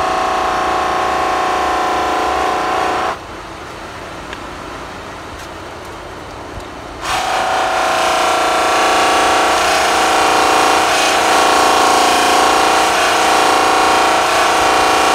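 Pedestal bench buffer running, with an alternator housing held against its compound-charged buffing wheel for polishing: a steady motor whine with the rub of the wheel on metal. It drops to a quieter run for about four seconds, about three seconds in, then comes back at full level.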